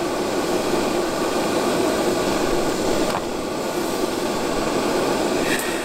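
A steady, even rushing noise with a low hum underneath, unchanging throughout.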